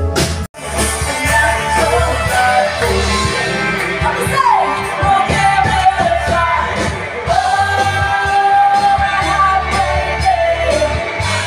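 Live band playing with a singer holding long notes over it. The sound cuts out for a split second about half a second in, then the music carries on.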